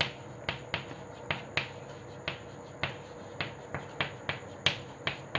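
Chalk tapping and scraping on a blackboard while words are written: an irregular run of short, sharp clicks, a few each second.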